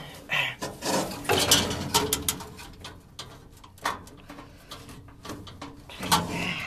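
A furnace filter being worked back into the furnace housing: metal scraping, rattling and a run of sharp knocks, busiest in the first two seconds, as the filter catches in the hole at the back.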